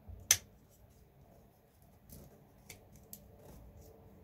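Hard plastic parts of a Traxxas TRX4 chassis clicking as they are handled and pried at: one sharp click about a third of a second in, then a few fainter clicks.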